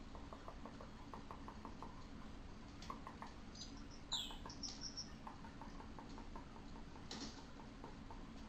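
Colored pencil scratching on paper in quick short strokes, several a second, in runs, over a steady low hum. A brief high chirp sounds about four seconds in.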